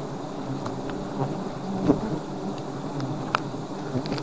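Dense, steady buzzing of a swarm of wild honey bees around their nest as it is harvested, with a few sharp knocks and clicks from the hard comb being cut and handled, the loudest about two seconds in.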